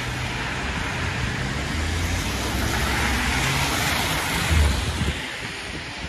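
Road traffic on a wet, slushy street: car tyres hissing through slush as vehicles drive past, over uneven low rumbling from wind on the microphone, loudest about four and a half seconds in.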